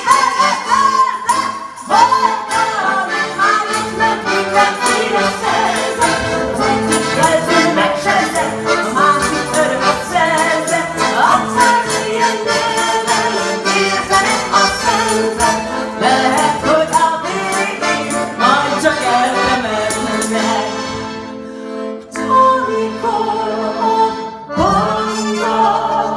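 Accordion playing a lively kolo dance tune, with a maraca and a tambourine shaken to the beat. The shaking stops about 20 seconds in, and the accordion carries on more quietly.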